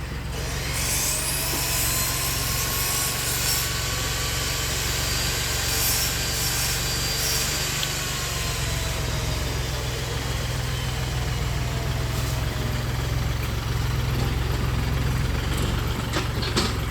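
An engine running with a steady low rumble. Its pitch rises over the first second or two, holds, then slides down gradually after about eight seconds.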